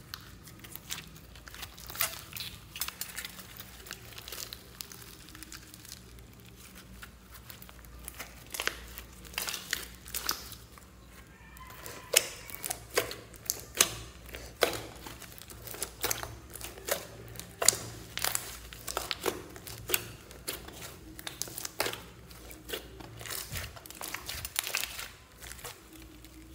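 Hands squeezing, stretching and pressing a thick slime mixed with clay and foam beads. It gives off a run of sharp crackling pops and squishes, busiest and loudest through the middle.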